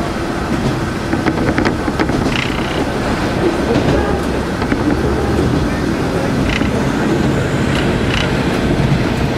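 KiHa 47 diesel railcar running, heard from on board: a steady rumble and engine drone, with scattered clicks from the wheels and track.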